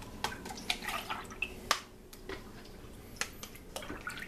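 Milk mixture poured from a plastic measuring cup into a thin plastic cup, with dripping and scattered light clicks and taps of plastic cups and the measuring cup, one sharper tap about a second and a half in.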